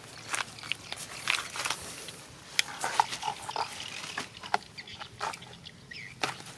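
A dog sniffing and snuffling close to the ground as it waits to be fed, with scattered short clicks and rustles of plastic plates and a plastic bag being handled beside it.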